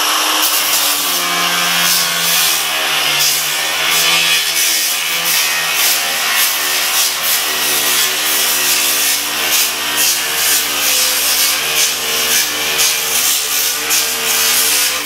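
Cordless angle grinder running with its abrasive disc pressed against chicken wire along a wooden frame edge, trimming off the excess wire. The motor whine dips and wavers in pitch as the disc bites, over a rapid crackle of wire strands being cut, and stops right at the end.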